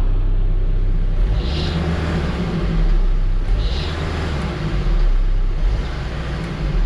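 Case 580SN loader backhoe's diesel engine revved up and eased back a few times on the hand throttle, with a faint, brief high squeal at a couple of the rev peaks: a drive belt slipping when the engine is revved.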